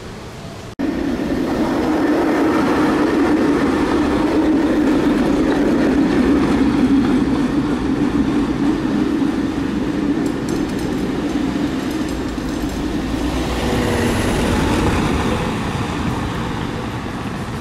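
ČKD Tatra tram running past on street track: a steady rumble of wheels on rails and running gear. It starts abruptly about a second in and swells again near the end.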